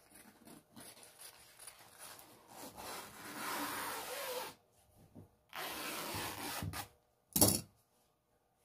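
Large fabric shears cutting through crepe fabric, the blades rasping through the cloth with rustling fabric, in two long stretches with a short pause between. A short, loud thump comes near the end.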